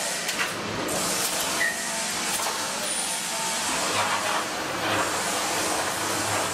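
Pre-cut wire mesh welding machine running: a steady hiss of machinery and air, broken by several sharp clicks and knocks, with a low hum from about four seconds in for around two seconds.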